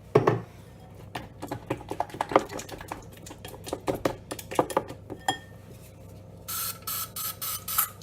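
A utensil clicking and knocking against a bowl as glue and air freshener are stirred into slime. Near the end comes a run of several short hissing sprays from an Air Wick aerosol can.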